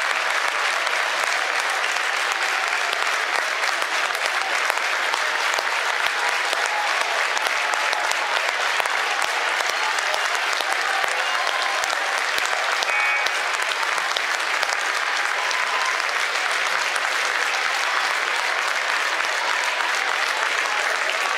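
Crowd applauding steadily and without a break, with some voices mixed in.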